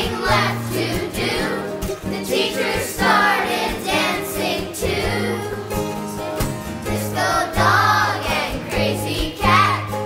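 Background music: a song with sung vocals over a steady bass line and beat.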